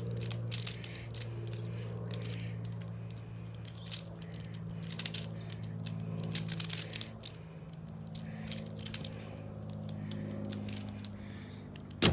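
A 3x3 Rubik's cube being turned fast by hand in a speed solve: rapid plastic clicks and scrapes of its turning layers, over a steady low hum. A single sharp knock near the end.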